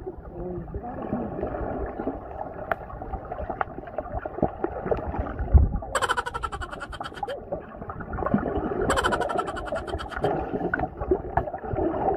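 Underwater sound picked up by a camera submerged in a swimming pool: muffled, low gurgling and bubbling as swimmers move in the water. Two brief bright crackling bursts come about six and nine seconds in.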